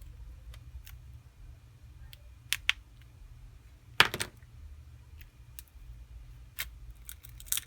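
Small hard clicks and taps of pry tools working against a Samsung Galaxy S7's back glass and frame while the glued glass is pried off. A quick pair comes about two and a half seconds in, the loudest click about four seconds in, and a run of clicks near the end, over a faint steady hum.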